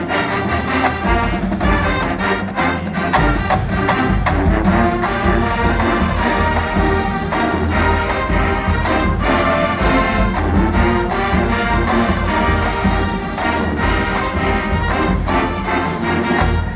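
College marching band playing: a full brass section over a drumline, with steady drum hits under the brass melody.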